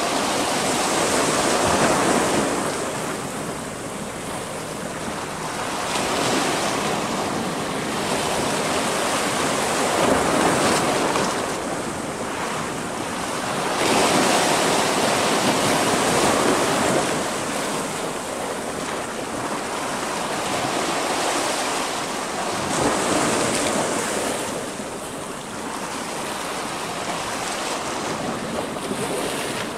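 Sea waves washing in and breaking against a rocky shore, the surf swelling and easing every few seconds, with wind blowing across the microphone.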